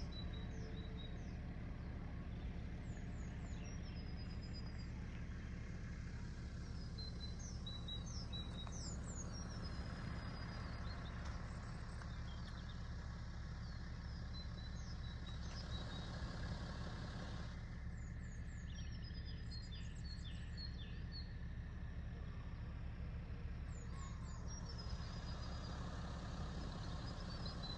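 Small birds chirping and calling in short falling notes and trills, over a steady low hum.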